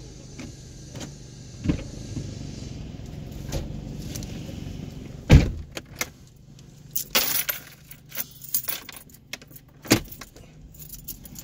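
Car driving with a steady low road and engine hum. A few sharp thumps come through, the loudest about five seconds in and another near the end. A quick run of light rattles fills the second half.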